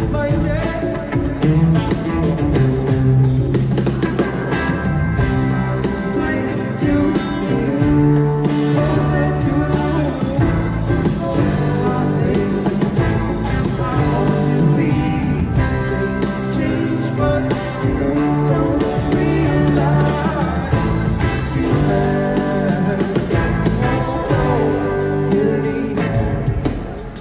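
Live rock band playing a song: electric guitar, bass and drums, loud and continuous.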